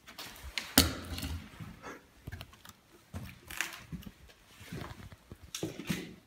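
Irregular footsteps and scuffs on a debris-strewn floor, with rustling handling noise; a sharp knock about a second in is the loudest.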